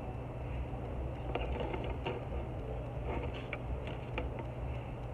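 Short crisp clicks and crackles of eating and handling food, in two clusters, over a steady low rumble.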